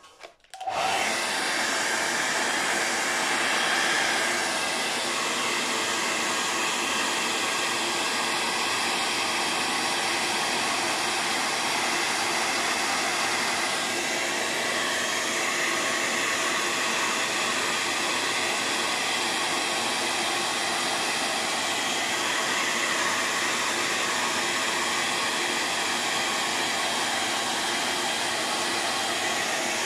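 Hair dryer switched on just under a second in and blowing steadily, drying a freshly painted layer of paint.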